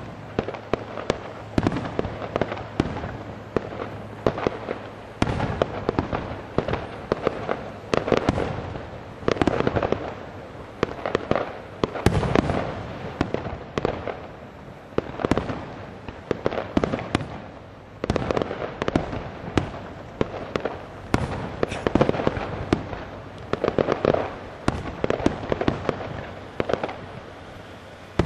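Aerial fireworks display: a continuous barrage of shell bursts and bangs, coming in dense clusters every second or two, with crackling between them.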